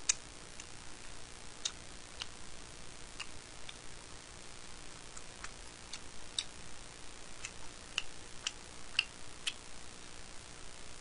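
Light, irregular clicks and taps of wooden chopsticks against each other and the plastic food trays while eating, over a faint steady hiss. The sharpest click comes right at the start.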